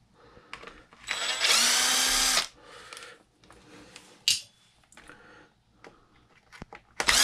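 Cordless drill-driver backing out screws from an RC truck's plastic top lid: one run of about a second and a half, then a second run starting near the end, with small clicks of handling in between.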